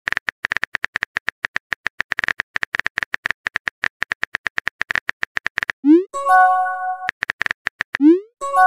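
Simulated phone-keyboard typing: rapid clicks, several a second, for about six seconds. Then a short rising swoosh and a bright chime as the message is sent, a few more clicks, and another swoosh and chime near the end.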